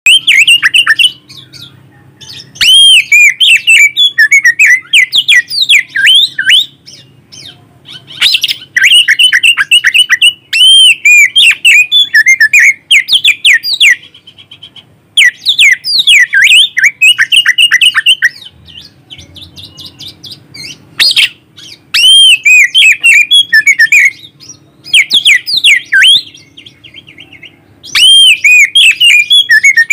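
Oriental magpie-robin (kacer) singing loudly at close range. The song comes in bursts of rapid, varied whistled and chirping notes, several seconds each, broken by short pauses.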